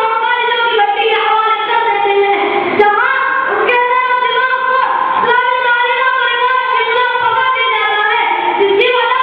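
A boy's high voice chanting an unaccompanied Islamic devotional melody through a microphone, holding long notes with ornamented turns and pausing briefly for breath.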